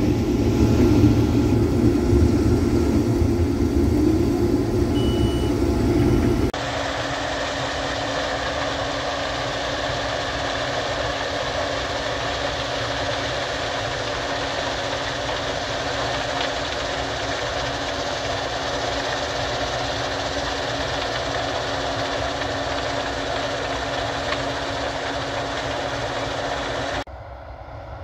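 Case IH 2388 combine harvesting corn, heard in the cab: a loud, steady engine and threshing drone. About six seconds in, it cuts to a quieter, steady combine drone heard from across the field, which drops lower again near the end.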